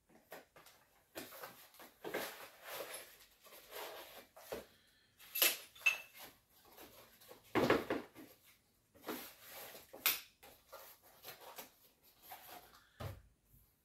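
Cardboard box being handled and opened: irregular scraping and rustling of the box and its packing, with scattered knocks and clinks of hard parts inside, the loudest about eight seconds in.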